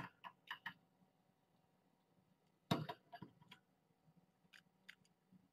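Kittens playing with a feather wand toy: scattered light taps and clicks, with a louder clatter of knocks about two and a half seconds in.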